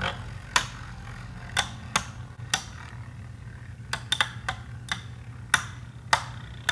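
Sharp plastic clicks and knocks from Beyblade spinning tops and their gear, about nine of them, unevenly spaced.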